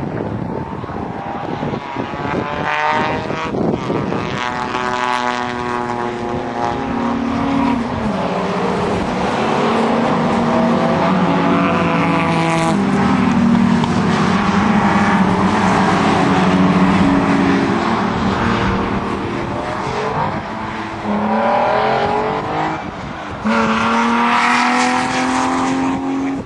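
A pack of Jaguar saloon and XJS racing cars going past together, several engines revving up through the gears at once. A steady engine drone holds through the middle, and near the end more cars rise in pitch as they accelerate away.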